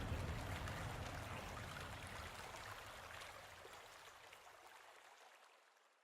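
Flowing water, an even rushing with fine spattering detail, fading out steadily.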